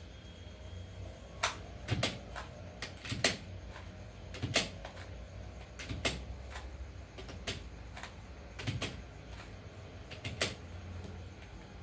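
Plastic 2x2 Rubik's cube being turned layer by layer, each turn a sharp clack, about a dozen spaced unevenly, roughly one a second.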